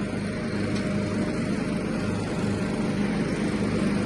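1976 John Deere riding lawnmower's engine running steadily under load with the mower deck engaged, mowing leaves.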